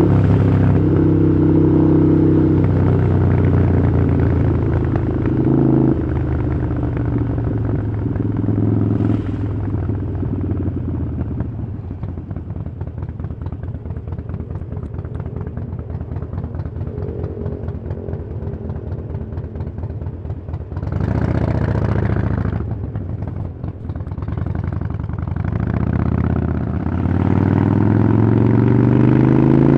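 Harley-Davidson Iron 883's V-twin engine through a Vance & Hines exhaust, slowing down from speed and then running at low revs with a slow, lumpy beat. About two thirds of the way through it gets a short blip of throttle, and near the end it accelerates again with rising pitch.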